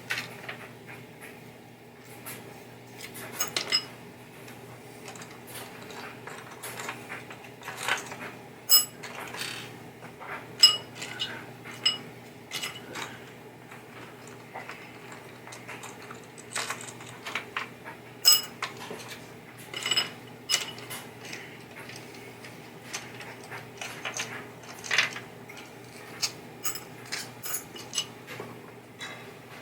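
Irregular clinks, clicks and clatters of small metal parts and hand tools being handled as a pinball playfield is taken apart, over a steady low hum.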